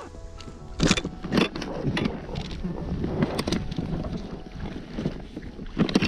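Wind rumbling on the microphone over choppy lake water, with several sharp splashes as a small hooked fish thrashes at the surface.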